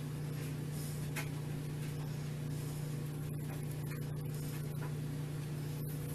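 A steady low hum over a faint even hiss, unchanging throughout.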